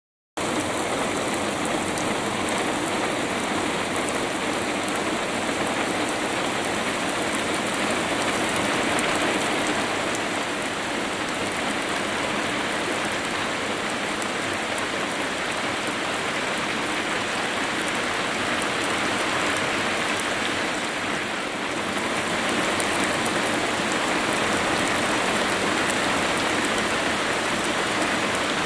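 Steady rain falling, an even wash of drops that keeps up throughout.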